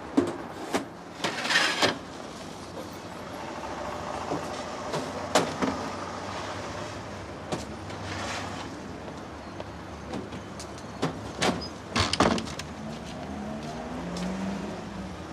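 An armoured security van being unloaded: several sharp metal clunks and knocks from the van's hatch and the cash boxes being handled, with two short scraping stretches and a quick run of knocks near the end. A vehicle engine runs steadily underneath.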